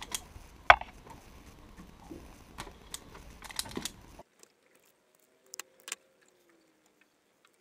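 Sharp clicks and snaps of a hand-held self-adjusting wire stripper closing on and cutting wire insulation, among small handling noises of the wires and tool; the loudest snap comes about a second in. The background hiss cuts out suddenly a little past halfway, leaving a few faint clicks.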